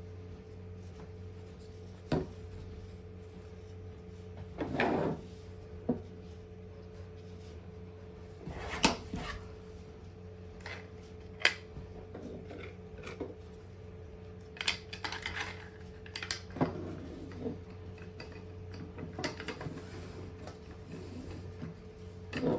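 Paracord being threaded through 3D-printed plastic parts: scattered light clicks and knocks of plastic being handled, with a few brief rustles of cord, over a steady low hum.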